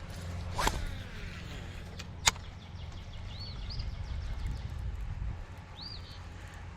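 Fishing rod being cast: a swish with line whirring off the reel, falling in pitch, then a sharp click. A bird chirps three times over a low steady rumble.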